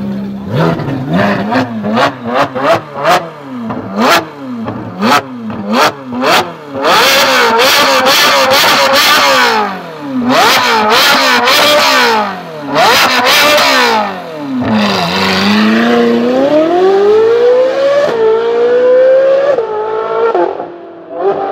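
Ferrari 458 Speciale's 4.5-litre V8 through a Fi valved exhaust, revved hard in a rapid string of short blips with sharp cracks, then held at high revs three times. About fifteen seconds in it pulls away, the pitch climbing steadily with brief drops at the upshifts near the end.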